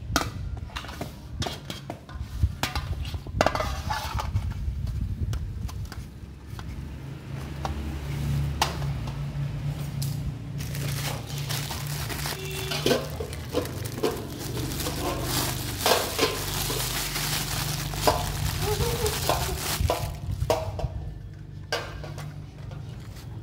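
A thin black plastic bag crinkling and rustling as it is pulled open by hand. In the first few seconds there are knocks and clinks from metal lampshades being handled.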